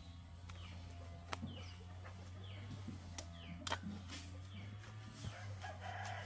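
Chickens calling: a run of short high peeps, each falling in pitch, about two a second, with a longer pitched call near the end. A couple of sharp clicks and a steady low hum run underneath.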